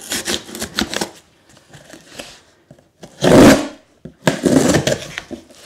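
Cardboard box being pulled open by hand: rustling and scraping of cardboard flaps, with one loud half-second tearing scrape about three seconds in.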